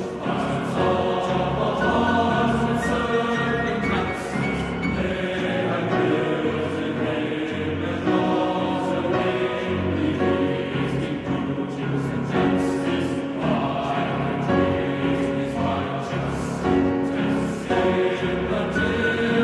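Background music of a choir singing sustained chords that change every second or two.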